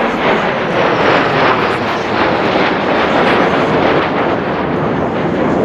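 Six F-16 Fighting Falcon jets flying a tight formation overhead, their engines making a loud, steady rushing rumble.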